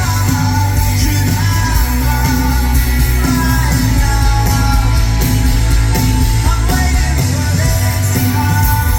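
Rock band playing a song live, loud, with a lead singer over heavy bass, drums and guitars.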